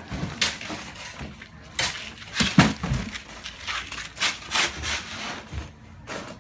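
Irregular clatter of knocks, thumps and scrapes, several a second, the loudest about two and a half seconds in.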